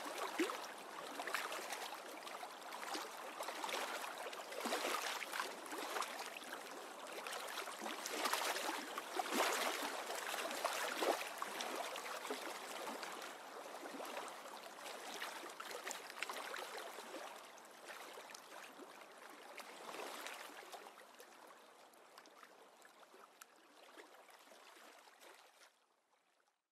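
Water splashing irregularly, growing fainter over the last several seconds until it stops.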